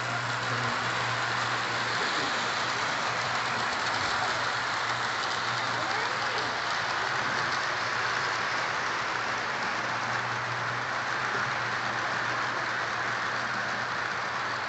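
Lionel O-gauge 4-4-0 General-type model steam locomotive and its freight cars running on three-rail track: a steady rolling rattle of metal wheels on the rails over a low, even motor hum.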